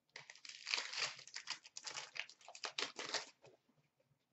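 Upper Deck SP Authentic hockey-card pack wrapper crinkling as it is torn open and handled. It is a dense run of crackles lasting about three seconds, then it stops.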